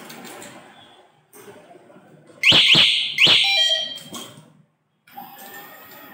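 Electronic alarm siren of an electric-vehicle conversion kit chirping three times in quick succession, each chirp a sharp rising sweep, about two and a half seconds in.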